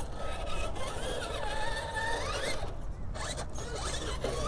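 Traxxas TRX-4 RC crawler's electric motor and geared drivetrain whining as it climbs rocks. The pitch rises and falls several times with the throttle, climbing sharply about two and a half and three seconds in.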